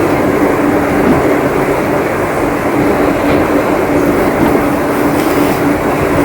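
Heavy rain pouring steadily, a dense, even rushing noise with a constant low hum running under it.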